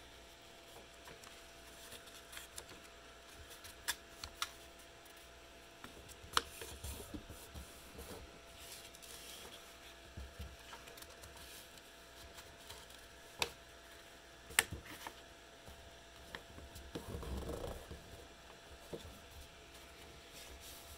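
A sheet of brown paper being folded and creased by hand on a tabletop: faint rustling and sliding with a few sharp clicks scattered through, and a longer rustle about three-quarters of the way in. A faint steady hum runs underneath.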